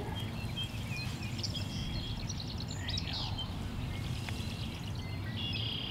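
Songbirds chirping and calling: many short high chirps and a quick trill, over a low steady rumble.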